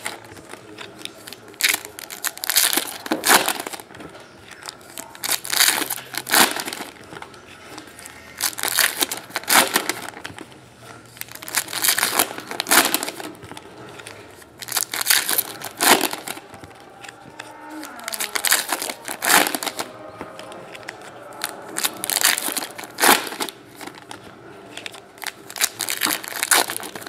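Foil trading-card pack wrappers being torn open and crinkled by hand, in repeated short bursts of crinkling every second or two.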